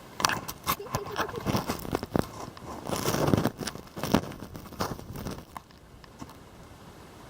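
Irregular crunching and scraping of snow, a quick run of crunches with a louder, longer scrape about three seconds in.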